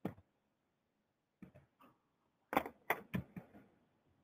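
A few short, sharp clicks and knocks over near silence: one right at the start, then a cluster of louder ones about two and a half to three and a half seconds in.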